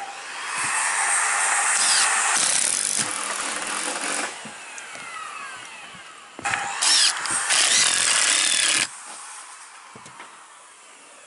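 Cordless drill driving deck screws through 1x4 wood strapping into the roof deck, in two runs of a few seconds each.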